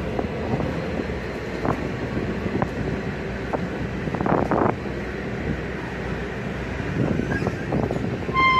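Tugboat engine running steadily under wind buffeting the microphone, with a few short knocks. Near the end a ship's horn starts sounding one steady tone.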